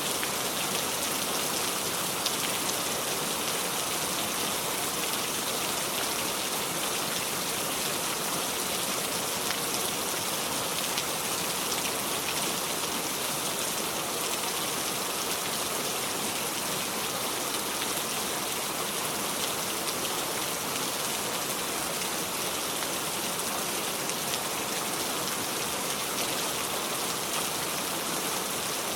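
Steady heavy rain falling, an even hiss with faint scattered drop ticks and no thunder.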